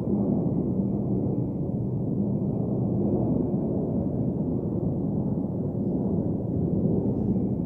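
Steady low rumbling background noise with no speech and no distinct events: room and recording noise.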